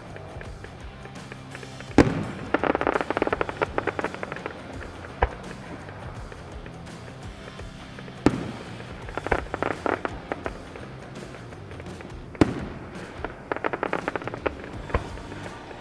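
Fireworks display: four sharp shell bursts, three of them followed by a second or two of dense crackling, with music playing underneath.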